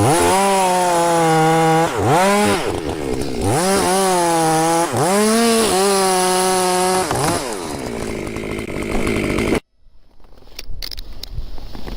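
Chainsaw running at high revs, its pitch dipping and climbing back several times as it works through wood. After about seven seconds the engine note fades into a rougher noise, and near the end the sound breaks off abruptly to a much quieter background with a few clicks.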